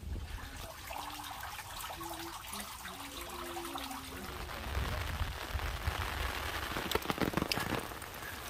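Steady hiss of light rain and trickling water, with water running from bamboo spouts into stone basins, and a few sharp taps in the second half.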